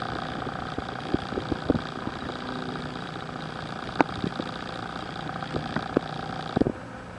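A steady mechanical hum like an idling engine, with scattered sharp clicks and knocks, the strongest about four seconds in.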